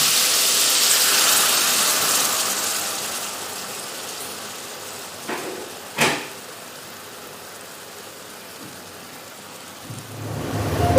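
Food sizzling in a frying pan, a steady hiss that dies down after a few seconds, with two sharp clacks of a utensil on the pan about five and six seconds in.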